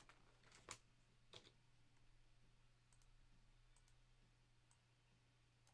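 Near silence broken by a few faint, short clicks from a computer mouse and keyboard, the clearest two in the first second and a half, over a faint steady low hum.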